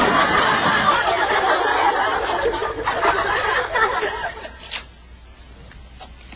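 A crowd laughing, the laughter dying away about four and a half seconds in, followed by two faint clicks.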